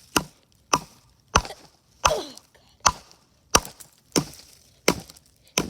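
A small hand axe chopping into a piece of wood: nine sharp, evenly paced strikes, about one every three-quarters of a second.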